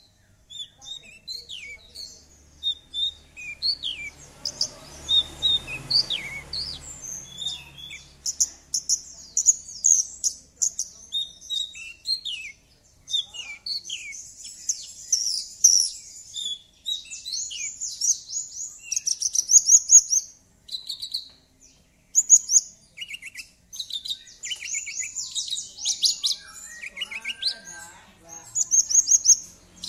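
Horsfield's bush lark (branjangan, Mirafra javanica) in full song. It gives a continuous, varied string of high chirps, quick slurred notes and fast buzzy trills and rattles.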